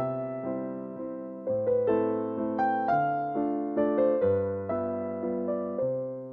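Background music: a gentle electric piano melody of single struck notes over slow bass notes.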